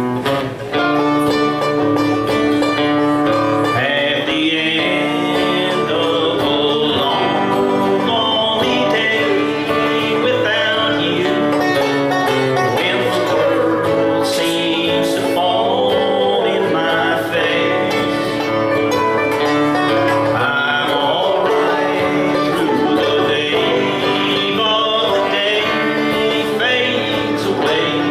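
Acoustic guitar and banjo playing a country song together, the guitar strummed and the banjo picked, with no break.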